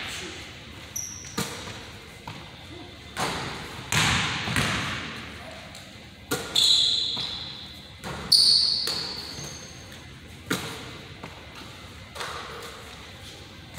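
Basketball bouncing on a hardwood gym floor: about eight irregularly spaced bangs, each ringing out in the large hall's echo. A few brief high squeaks come between about 6 and 9 seconds in.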